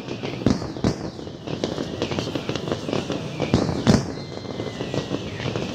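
Fireworks display: aerial shells bursting in a rapid, irregular run of bangs and crackles, with the loudest bangs about half a second in and again near four seconds in.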